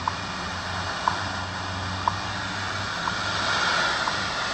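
Shortwave static from the Yewrich YU-RU8 portable receiver's speaker, with a short tick once a second: the seconds pulses of the WWV time-signal station on 15 MHz, faint under the noise.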